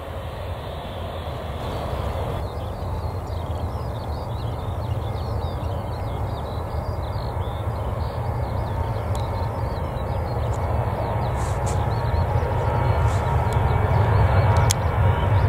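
Jet airliner engines rumbling, growing slowly louder.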